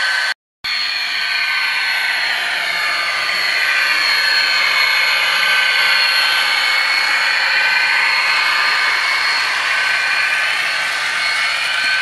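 HO scale model train running on the track: a steady high-pitched whine from the locomotive's motor and running gear, with a few tones that slowly dip and rise in pitch. The sound cuts out completely for a moment about half a second in.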